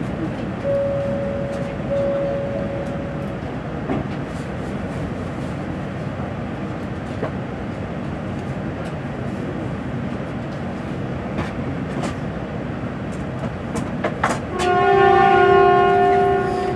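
Shinkansen N700A train's air horn (typhon) sounding a held multi-tone blast of about two seconds near the end, the departure signal. Before it, a steady din of station and train noise, with two short tones about a second in.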